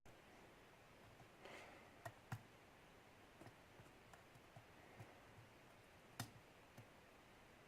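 Faint, scattered clicks of a metal lock pick working the pins inside a Yale pin-tumbler lock cylinder, as the pick is worked under a pin that will not set. Two sharper clicks come about two seconds in and another about six seconds in.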